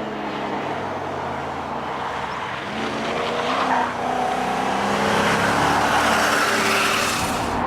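Mercedes SL500 V8 engine accelerating hard, revs climbing, with a brief drop near the middle like a gear change, then pulling up again and getting louder.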